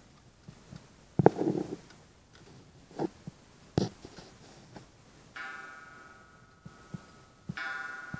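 Antique Kienzle wall clock striking on its coil gong: two gong strokes about two seconds apart, each ringing and fading slowly. Before them come a few knocks and clicks while the minute hand is pushed round to twelve.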